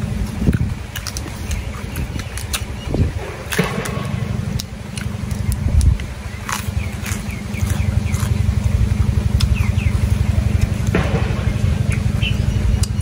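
A steady low rumble with a fast pulse, like a small engine running, growing louder about eight seconds in. Over it come sharp crunches and clicks of a man tearing and chewing fresh lettuce leaves with grilled pork while eating by hand.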